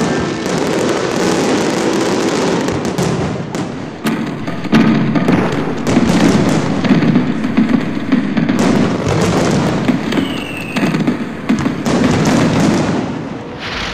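Large fireworks display: many aerial shells bursting in quick, overlapping bangs and crackling, with a short lull near the end.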